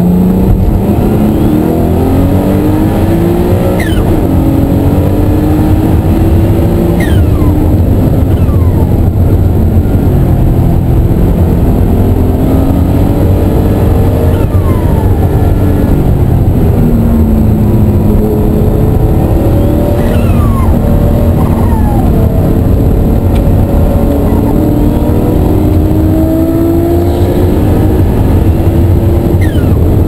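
Ruf CTR 'Yellow Bird''s twin-turbo flat-six, heard loud from inside the cabin at racing speed, its pitch climbing under acceleration and dropping with each gear change and lift. Several times a brief high whistle falls in pitch.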